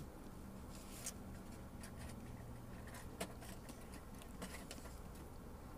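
Faint sipping of spicy noodle broth from a paper cup: a few soft, scattered slurps and mouth clicks over a low steady hum.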